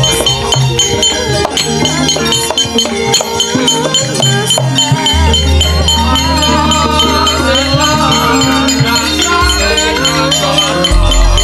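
Javanese gamelan ensemble playing: a dense layer of ringing metallophone and gong tones with a wavering melodic line above them. Deep low tones come in about halfway through and again near the end.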